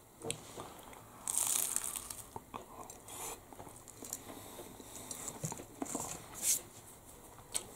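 Biting into a steak bridie's flaky, crunchy pastry: one loud crisp crunch about a second in, then scattered quieter crunches and crackles as the bite is chewed.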